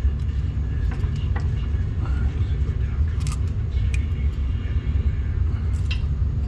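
A steady low rumble, with a few short metallic clicks and clinks as the brake caliper is fitted back over the new pads.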